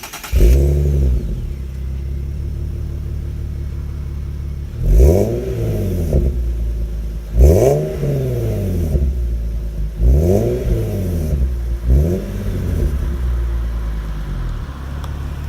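Exhaust of an Infiniti FX37's 3.7-litre V6. It flares up just after starting, settles to a steady idle, then is blipped four times, each rev rising and falling back to idle.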